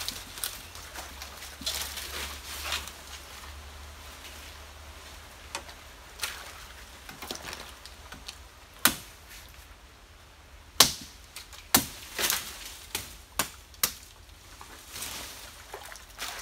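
Machete chopping into nipa palm frond stalks: a run of sharp strikes, the loudest ones in the second half about a second apart. Softer crackling of dry fronds comes between them.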